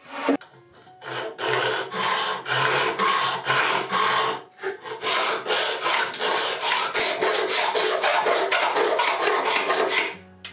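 Hacksaw cutting a stainless steel rod: steady back-and-forth scraping strokes, with a brief pause about four and a half seconds in.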